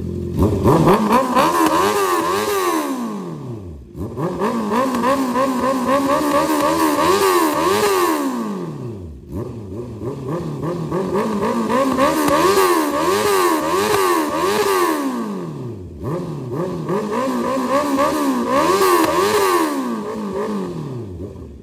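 Honda CB650R inline-four with an aftermarket full exhaust system, revved four times while parked: each time the engine note climbs, holds briefly and falls back toward idle.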